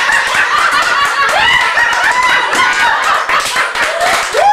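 A group of people laughing and shrieking with high, gliding voices, no words, with hand clapping joining in from about halfway through.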